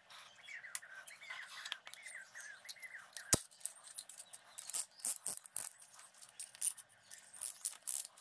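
Short clicks and knocks from a piston in a band-type ring compressor being handled over the engine block, with one sharp click about three seconds in. A bird chirps repeatedly through the first few seconds.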